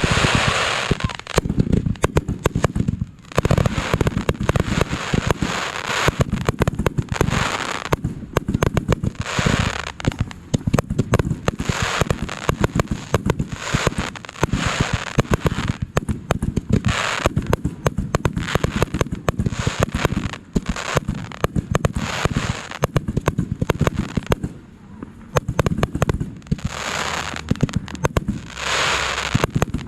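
Fireworks going off in quick succession: dense, overlapping bangs with repeated bursts of crackling throughout.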